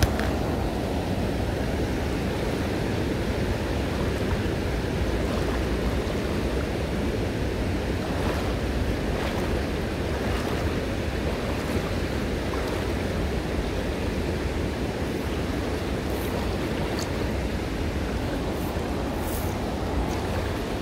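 Steady rush of a shallow mountain river flowing over stones.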